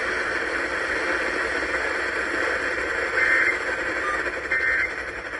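Steady broadcast hiss, then two short bursts of data tones about a second and a quarter apart, starting about three seconds in. These are Emergency Alert System end-of-message codes, which mark the close of the alert.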